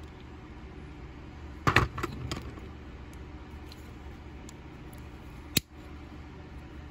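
Clicks from handling a Buck Spitfire folding knife as its blade is swung on the pivot and a small screwdriver works its screws. A quick cluster of clicks comes about two seconds in, and one sharp click about five and a half seconds in, over a low steady background noise.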